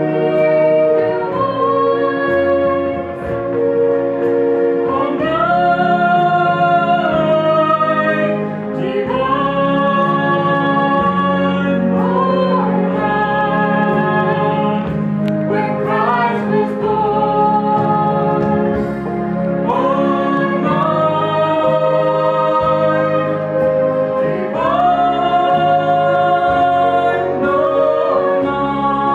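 Mixed choir of young men and women singing a Christmas carol in long, held notes, the melody stepping from phrase to phrase.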